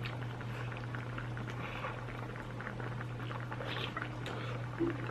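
Spicy army base stew bubbling in a pot over the fire, a steady simmer with many small pops.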